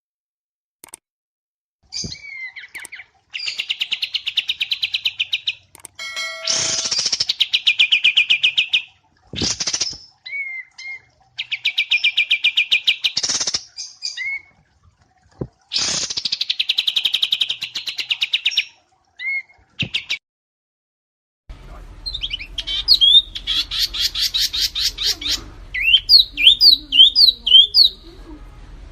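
Small songbird singing: repeated rapid trilled phrases of about two seconds each, with short separate notes between them. Near the end a different recording starts, with a steady hiss under a run of quick sweeping notes.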